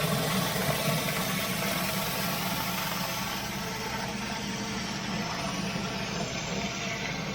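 Pressure washer engine running steadily, with a constant hiss over a low hum.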